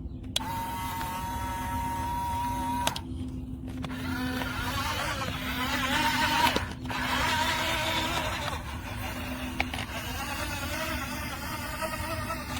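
Small electric drive motor of a toy RC dump truck whining as it is driven: a steady high whine from about half a second in for a couple of seconds, then a wavering whine as it keeps moving.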